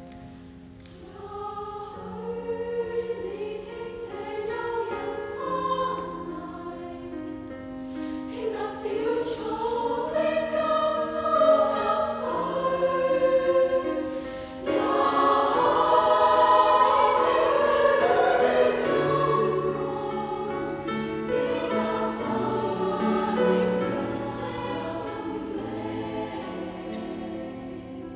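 Three-part treble (SSA) women's choir singing a slow contemporary choral setting in Cantonese, with piano accompaniment. The sustained chords swell to their loudest about halfway through, then gradually fade toward the end.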